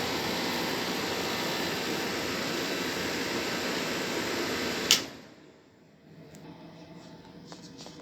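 Window-type air conditioner running with a steady whooshing hum, then a sharp click of the selector switch about five seconds in as it is turned off, and the sound dies away within a second. The unit is blowing no cold air.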